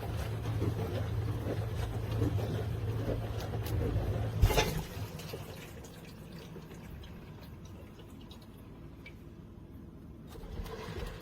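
Countertop mini dishwasher running: a motor hum with water splashing inside, then a knock about four and a half seconds in as the hum stops, leaving quieter water trickling and dripping.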